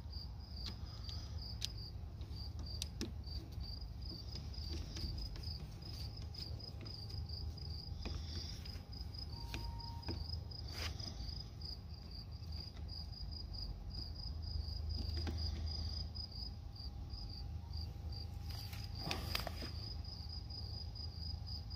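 Insects chirping in a steady, regular, high-pitched pulse over a low background rumble, with a few light clicks of metal as a bolt is screwed through the mower's handle bracket.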